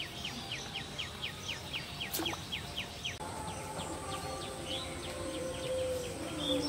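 A bird calling in a rapid run of short falling notes, about four or five a second, for the first three seconds. After a sudden change about three seconds in, a steady high insect whine takes over, with scattered bird calls.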